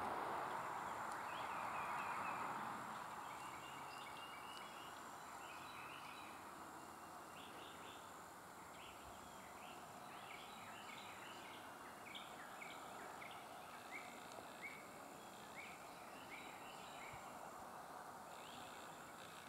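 Birds chirping in many short, repeated calls, with a thin steady high-pitched whine underneath. A broad rushing noise fades out over the first three seconds.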